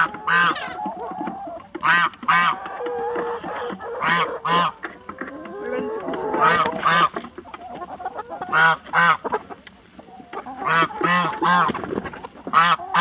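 Farm poultry calling: loud, short, honk-like calls, often in pairs, every second or two, over quieter clucking.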